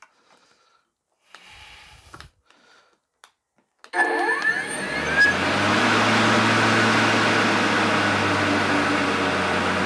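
Worx WG749 40 V brushless lawn mower's motor and blade switching on about four seconds in, spinning up with a rising whine and then running steadily and loudly; the owner puts the sound down to its IntelliCut power feature kicking in.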